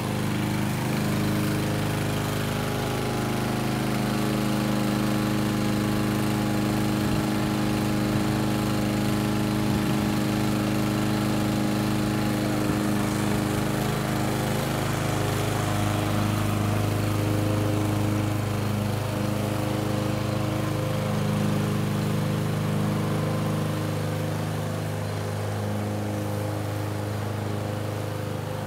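Gasoline walk-behind lawn mower engine running steadily while cutting grass, a little fainter near the end.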